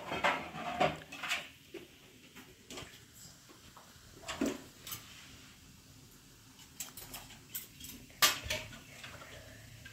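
Pots, dishes and utensils being handled, a series of scattered clinks and knocks, the loudest a sharp knock about eight seconds in.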